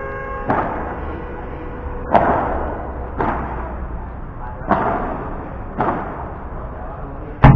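Padel rally: a padel ball being hit back and forth, six sharp hits roughly a second apart, each with a short echo; the loudest hit comes near the end.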